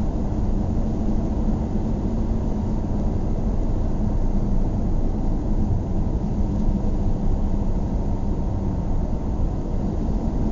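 A car driving at a steady speed: a constant drone of road and engine noise, heaviest in the low end, that neither rises nor falls.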